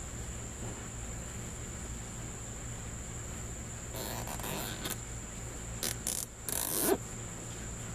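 Plastic zip ties being pulled tight through drilled holes in a cracked plastic fan shroud: a rasping zip about four seconds in, then three shorter zips near the end, the last rising in pitch and the loudest. A steady high-pitched whine and a low hum run underneath.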